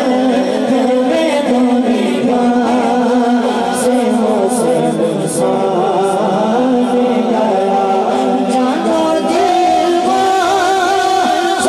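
A boy's voice singing a naat, an Urdu devotional poem, into a microphone, holding long notes that waver and bend in pitch.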